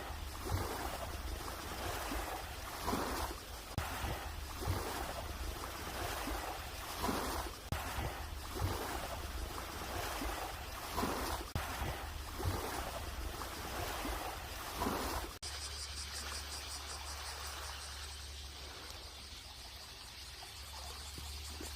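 Small waves washing in at the shoreline, a surge every couple of seconds over a steady low rumble. About fifteen seconds in the sound changes abruptly to a steadier, fainter wash.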